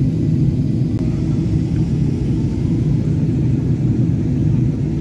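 Steady low cabin rumble inside a Boeing 777-300ER in cruise-level flight, the drone of its GE90 engines and the airflow over the fuselage, with no changes or distinct events.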